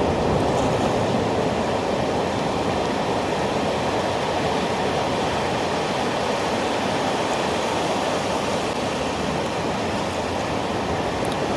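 Sea surf breaking on a sandy beach: a steady, even wash of wave noise with no distinct single breakers.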